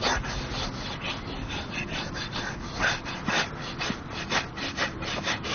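Repeated scraping strokes of a hand grooming a horse's coat, a brush or comb rubbing back and forth through the hair in quick, uneven strokes.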